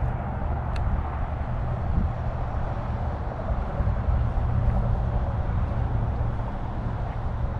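Steady low outdoor rumble with no distinct source, with a single sharp click just under a second in.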